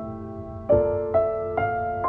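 Background piano music: single notes struck one after another, each ringing on and fading, with three new notes in the second half.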